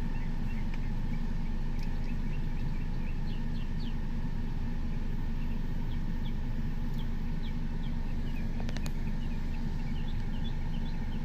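Steady low rumble of a car driving slowly, heard from inside the cabin, with many short high chirps over it throughout and a brief click near the end.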